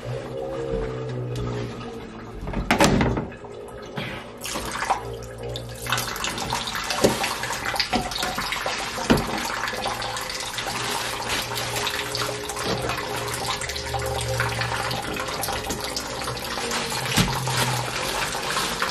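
Kitchen tap running into a stainless-steel sink, a steady rush of water from about five seconds in, with a plastic bag crinkling as raw chicken is handled in it. A single sharp knock about three seconds in.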